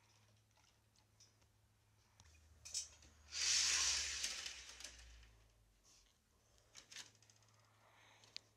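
Handling noise: light clicks of a plastic HO scale model freight car being set onto the track, and a loud rustling scrape about three seconds in that fades over a second or two.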